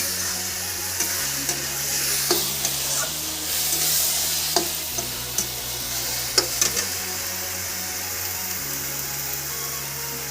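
Ginger-garlic-onion masala paste with turmeric, chili powder and salt sizzling in hot oil while being stirred and sautéed in a pan. A few sharp clicks of the spatula against the pan come through the steady sizzle.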